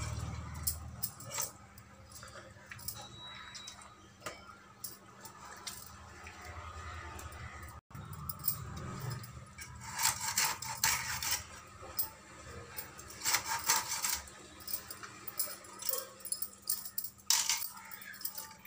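Fish being gutted by hand on a boti, a blade fixed to a wooden board: scraping and handling noises with metallic clinks and jingles from bangles in short bursts. The busiest clusters come about ten and thirteen seconds in.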